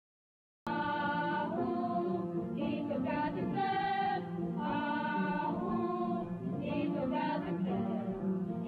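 Choral music: a group of voices singing a chant-like melody, starting a moment in after silence.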